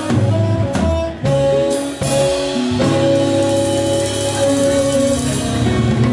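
A live band playing: electric guitars and a drum kit, with a long held note in the middle of the passage.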